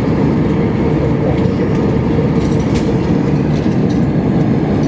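Steady cabin noise of an Airbus A320-200 in flight: an even rush of engine and airflow noise, strongest in the low end, with a faint hum on one steady note.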